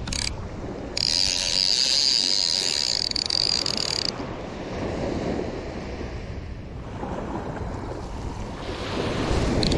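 Conventional surf-casting reel's spool spinning free as line pays out on a cast: a steady high whir that starts suddenly about a second in and stops abruptly about three seconds later. Surf washing and wind on the microphone throughout.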